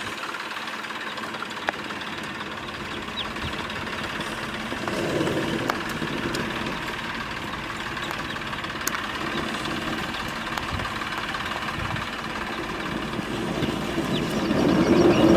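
Tractor engine running steadily under load as the tractor pulls a stone-laden trailer up a rocky slope, swelling briefly about five seconds in.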